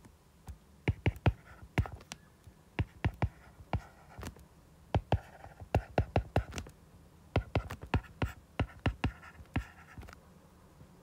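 Stylus writing on a tablet's glass screen: a string of sharp, irregular taps and clicks with faint scratching between them as an equation is handwritten.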